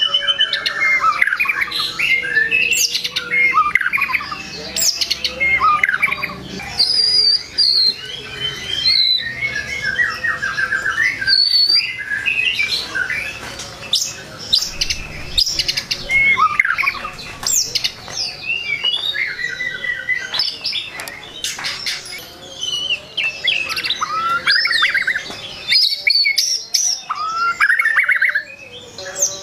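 White-rumped shama (murai batu) singing a long, rapid, varied song of sliding whistles, trills and chirps with only brief pauses, packed with mimicked notes ("full isian").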